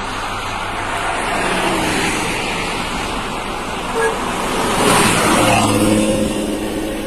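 Diesel bus engine running through a loud, deep 'snoring' (ngorok) exhaust, swelling louder about five seconds in as it revs. There is a brief horn toot about four seconds in.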